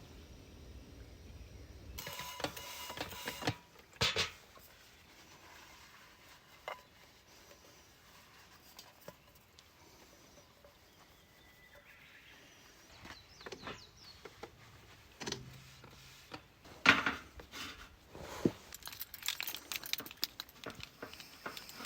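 Scattered clinks and clatter of small metal items being handled, with a sharp knock about four seconds in, a louder one about seventeen seconds in, and a quick run of clinks near the end.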